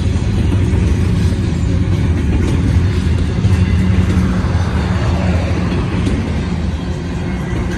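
Double-stack intermodal train of loaded well cars rolling past at close range: a loud, steady rumble of steel wheels on rail.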